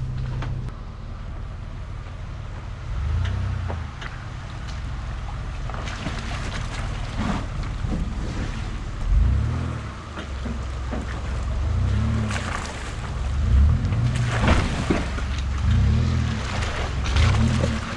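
Chevrolet Colorado ZR2 pickup's engine revving up and down again and again under load as it crawls up a rocky creek bed. Water splashes and there are scattered knocks from the tyres on rock. The engine hums more steadily in the first half, and the repeated revs come in the second half.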